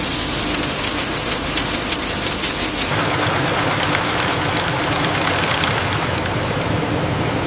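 Factory machinery running: a loud, dense mechanical din with rapid rattling for the first few seconds, then a steady rushing noise with a low hum.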